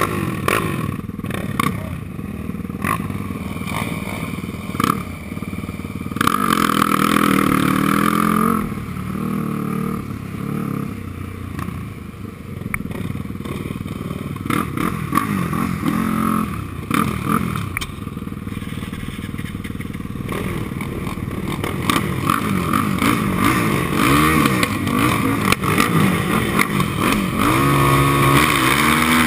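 Yamaha ATV engine revving up and easing off as the quad is ridden over a sandy track, heard from the rider's helmet. The engine pitch climbs and falls with the throttle, with scattered knocks and clatter from the bumps. It gets louder for a couple of seconds about six seconds in and again near the end.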